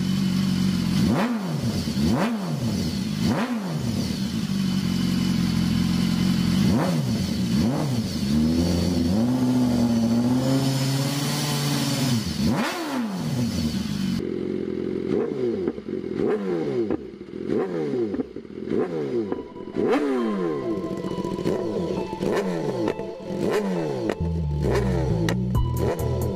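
BMW S1000RR inline-four sportbike engine revved through a Yoshimura R55 exhaust. The throttle is blipped about once a second, each rev rising and falling, then held high for a few seconds. About 14 s in, the sound cuts to another S1000RR exhaust being revved in quicker, sharper blips.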